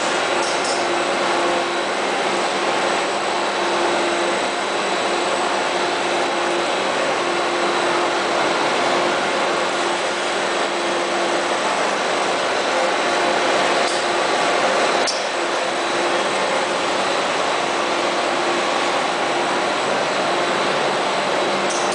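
Machinery running steadily with an even mechanical noise and a constant hum, with a few faint clicks about half a second in, around the middle, and near the end.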